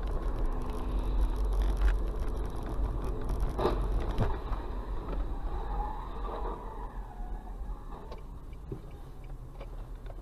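Car running: a steady low engine and road rumble, with a sharp knock about three and a half seconds in. The rumble eases off after about four seconds.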